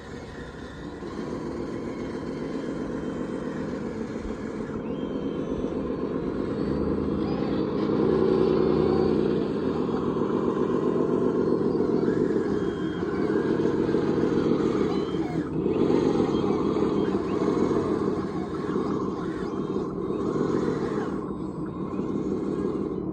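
Radio-controlled model construction machinery running and working: a steady, pulsing mechanical drone that swells and eases several times as the machines are worked.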